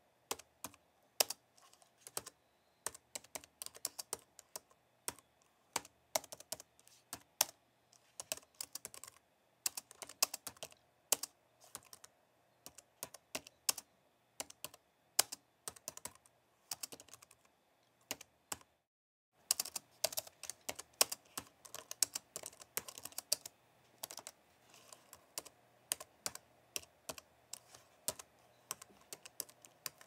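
Typing on a slim white low-profile computer keyboard: quick, irregular key clicks in bursts with short pauses. The sound cuts out completely for about half a second a little past the middle.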